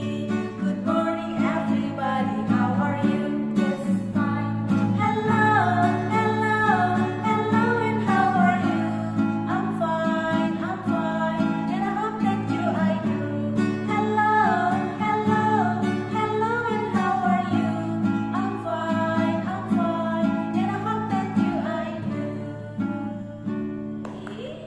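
Acoustic guitar strummed as accompaniment while a woman sings a song. The music eases down in the last couple of seconds.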